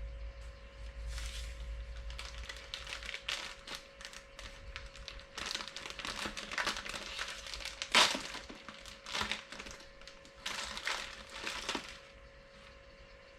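Packaging crinkling and rustling as it is handled and opened, in irregular bursts with one sharper, louder crackle about eight seconds in; the handling stops about a second before the end.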